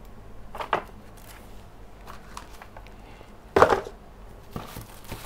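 A few short knocks and rustles from unboxing accessories and packaging being handled and set down. The loudest comes about three and a half seconds in.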